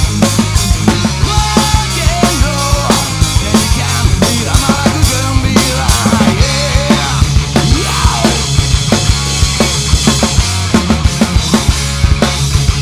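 A rock drum kit played hard along to a rock song recording: steady kick and snare hits with crashing cymbals over bass and electric guitar, the beat keeping an even, driving rhythm.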